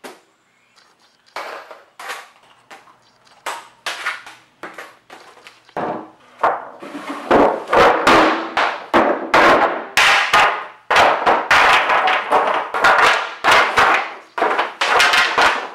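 Pine boards being dropped one after another onto a pile on a concrete floor, a run of hollow wooden clattering knocks. The first few seconds hold fewer, lighter knocks; about six seconds in they come faster and louder.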